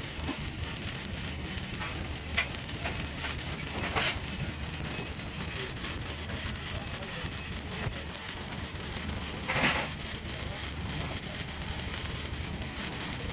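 TIG welding arc running, a steady crackling hiss with a low hum under it. There are brief louder spits about two and a half, four and nine and a half seconds in.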